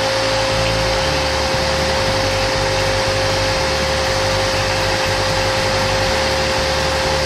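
Motor-driven rotary polishing pad spinning with a steady whine while a steel tool handle is pressed against it, giving a continuous rushing hiss of buffing.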